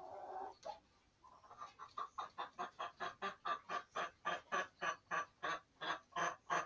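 A chicken gives a short call, then clucks in a rapid, evenly spaced run of about four to five clucks a second that grows louder.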